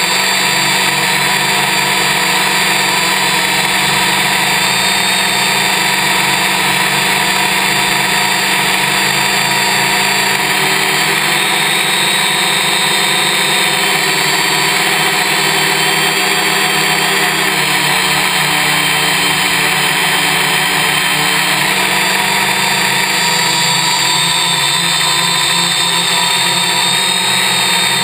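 Y6 multicopter's six electric motors and propellers buzzing loudly and steadily, picked up by a camera on board, their pitch wavering up and down midway as the throttle changes.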